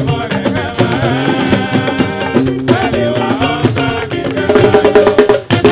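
Fuji music: a busy, fast percussion groove of drums with pitched instrument lines over it, between sung lines.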